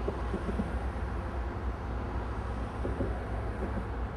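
Several diesel-electric freight locomotives pulling a manifest train out of the yard, engines working hard under load with a steady low rumble; a few brief higher tones from the train come through over it.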